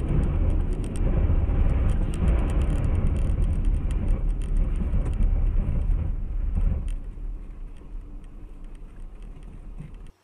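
Car driving: a dense low engine and road rumble with scattered light clicks and rattles, dying down over the last few seconds.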